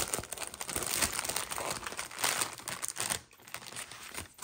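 Plastic packaging of a diamond painting kit crinkling and rustling as it is handled, with irregular crackles that die down briefly about three seconds in.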